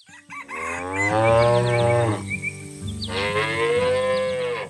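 A cow mooing twice, two long, drawn-out moos a little under a second apart.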